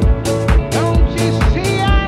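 Upbeat dance music with a steady kick drum, about two beats a second, and gliding melodic lines over it.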